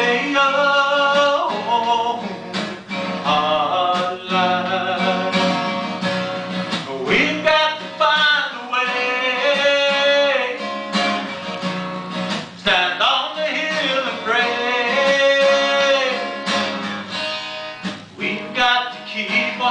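A man singing a slow song live to his own strummed acoustic guitar.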